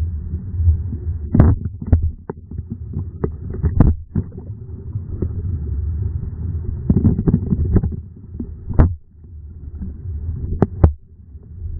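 Muffled low rumbling and water movement picked up by a waterproof camera in the water, with many irregular knocks and clicks from the water and handling against the camera case.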